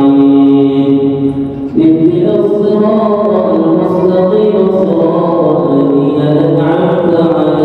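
A young imam's solo voice reciting the Quran aloud in a melodic chant, drawing out long held notes, with a short break a little under two seconds in before the next phrase.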